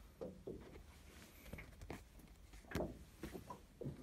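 Handling noise of a phone being held and turned: fingers and clothing rubbing on the body near the microphone, making a few soft, irregular knocks and rustles, the loudest nearly three seconds in.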